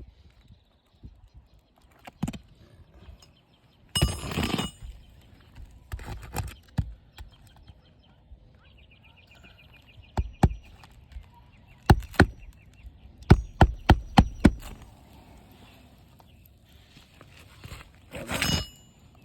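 Sharp knocks of hand tools working on an asphalt shingle roof: two pairs of strikes, then a quick run of about five, with bursts of scraping and rustling before and after.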